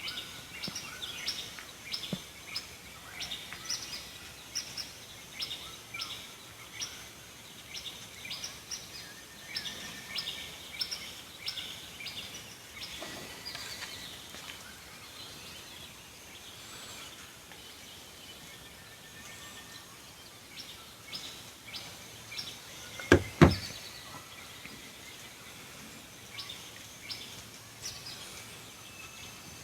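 Birds calling with rapid, repeated short high chirps over a steady outdoor background, thinning out in the second half. About two-thirds of the way through come two sharp, loud knocks in quick succession.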